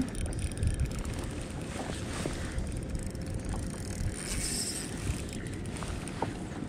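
Low, steady rumble of wind and water around a kayak, with a few light clicks from a spinning reel and rod being handled while a lure is worked.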